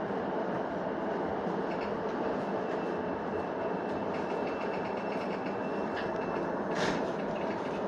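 Steady rumble of a Keihin-Tohoku Line electric commuter train, heard from the driver's cab. A faint high pulsing tone sounds for a few seconds, and a brief sharp noise comes about seven seconds in.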